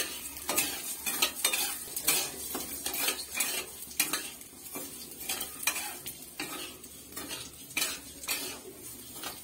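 Metal spoon stirring and scraping basmati rice round a black kadai as the rice fries in ghee, the spoon scraping the pan about twice a second over a steady frying sizzle.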